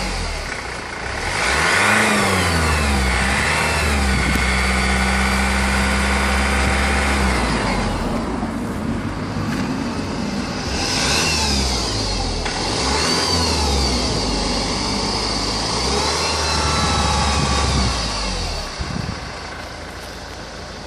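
2004 Honda 2.2 i-CTDi diesel engine revved up and down several times and held at higher revs for a few seconds, with a whine that rises and falls with engine speed. The whine appeared after the timing chain was replaced.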